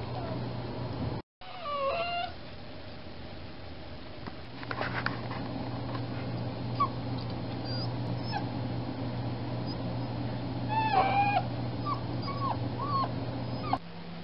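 Young puppy, freshly spayed, whining in a string of short, high-pitched whines that fall in pitch, with a longer whine about eleven seconds in. A steady low hum runs underneath.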